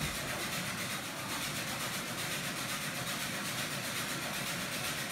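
A machine running steadily in the workshop, a continuous even whir with no separate knocks or pauses.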